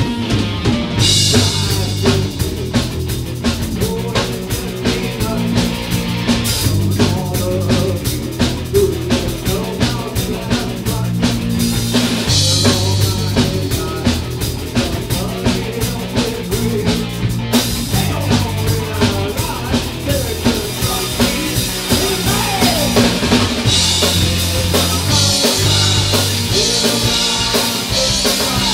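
Rock trio playing live: a drum kit keeping a steady beat with electric bass and electric guitar. Cymbals wash in over several stretches.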